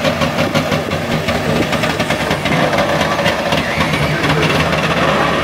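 Trabant 601's two-stroke two-cylinder engine running as the car pulls away, with a rapid, even pulsing beat.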